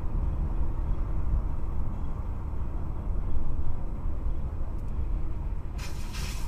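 Steady low rumble of a car driving on a wet highway, its engine and tyre noise heard from inside the cabin. A brief hiss near the end.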